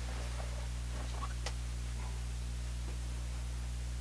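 Room tone with a steady low hum, with a few faint clicks and rustles in the first half as a person gets up and moves away from the microphone.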